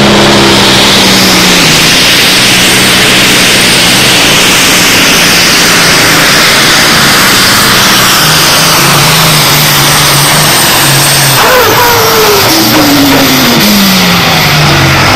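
John Deere super stock pulling tractor's turbocharged diesel engine running flat out under load, loud and steady, as it drags the weight-transfer sled. Past the middle of the run its pitch falls away steadily as the throttle comes off at the end of a full pull.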